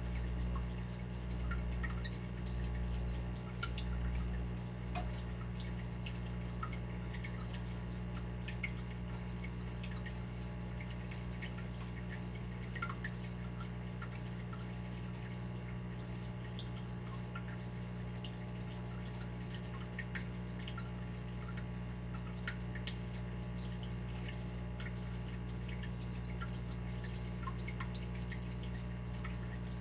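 Water dripping in irregular single drops over a steady low hum, with a few low swells in the first five seconds.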